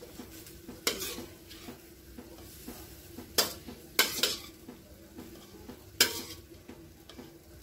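Metal ladle clanking and scraping against a wok as stir-fried cabbage and carrots are scooped out into a bowl, about five sharp clanks, over a faint sizzle from the hot pan.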